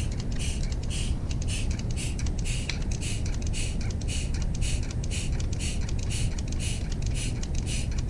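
Mityvac hand vacuum pump being squeezed steadily, about two strokes a second, each stroke a short hiss of drawn air, as it pulls on a dash vent servo's vacuum line that is not holding vacuum. A steady low rumble runs underneath.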